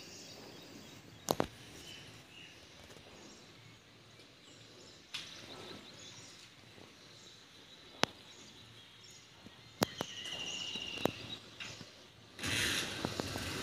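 Quiet outdoor ambience with a bird trilling briefly about ten seconds in and a few sharp isolated clicks, followed by a louder rush of noise near the end.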